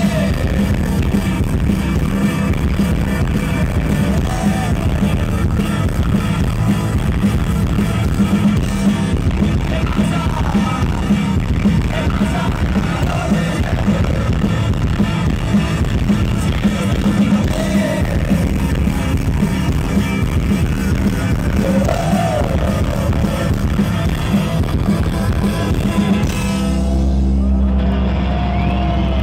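Indie rock band playing live and loud through a PA: bass, guitar, keyboard and drums, with some singing. About three seconds before the end the full band drops away, leaving held low notes.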